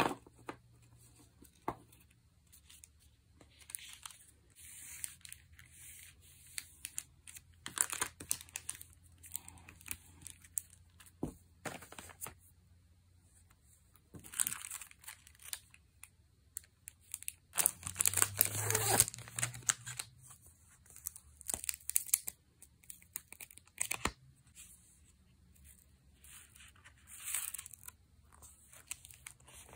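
Clear plastic packaging crinkling and rustling in the hands in short bursts, with a louder, longer stretch of tearing and crinkling a little past the middle, and a few light taps.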